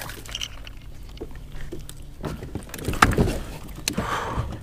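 A hooked largemouth bass being hauled out of the grass and flipped from the water up to a kayak: rustling and splashing with scattered knocks, loudest about three seconds in as the fish comes out.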